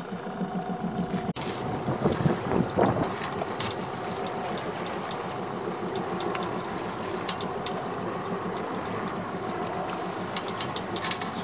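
A boat's engine running steadily at idle, with a brief dropout about a second in and a few louder bumps soon after.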